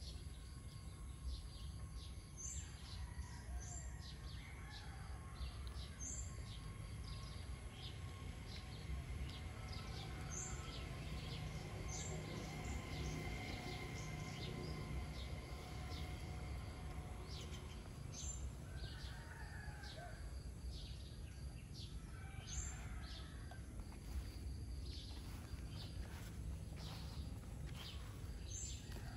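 Small birds chirping in short high calls every second or two, over a steady low background rumble.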